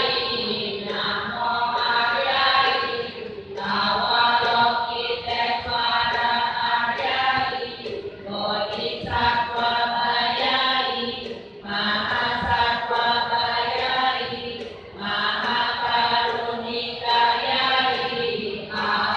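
A congregation of many voices chanting a Buddhist sutra in unison (liam keng), in phrases of about three seconds with short breaks for breath between them.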